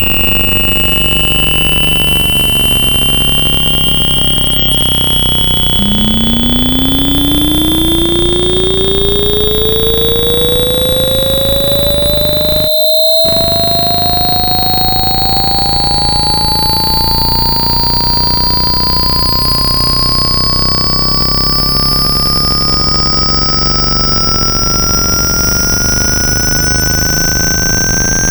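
Synthetic speaker-cleaning test tones for water ejection: a pair of closely spaced high tones slowly stepping upward in pitch over a steady low noise. About six seconds in, a lower tone joins and sweeps steadily upward. The sound drops out briefly near the middle.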